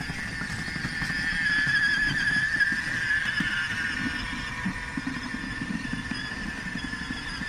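Children's battery-powered ride-on toy motorcycle, a BMW K 1300 S replica, driving along: a steady, slightly wavering high whine from its electric drive, over a low rumble of its plastic wheels on brick paving.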